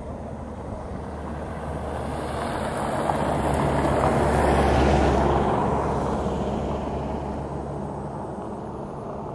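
A motor vehicle passing by, its engine and rushing sound swelling to a peak about halfway through and then fading away, over a steady low engine hum.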